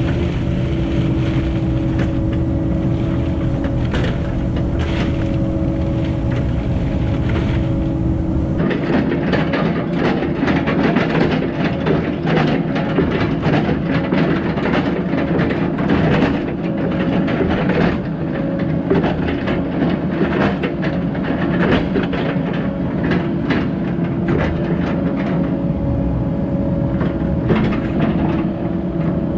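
Diesel engine of a Cat 308 excavator running steadily under work. About a third of the way in, a dense clatter of knocks and scrapes joins it, typical of the bucket and tracks working dirt and gravel.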